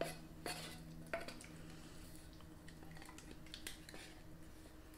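A spatula scraping thick condensed cream of chicken soup out of a metal can into a mixing bowl: a few light clicks and scrapes of the spatula against the can rim and bowl, the clearest about half a second and a second in.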